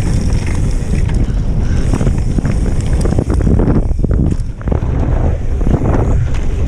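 Wind buffeting the camera microphone on a fast mountain-bike descent, over the rush of tyres on a dirt trail, with frequent short clicks and knocks from the bike rattling over the rough ground.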